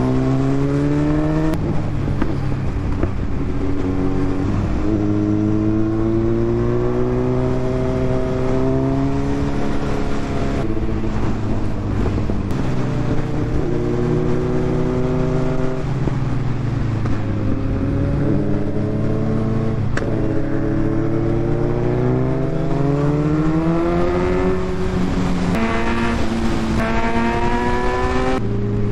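Kawasaki Z900's inline-four engine pulling through the gears: its pitch climbs steadily, drops at each upshift and climbs again, several times over, under a steady rush of wind noise.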